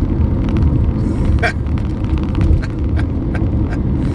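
Road noise from a vehicle being driven, heard from inside: a steady low rumble with scattered light clicks and rattles.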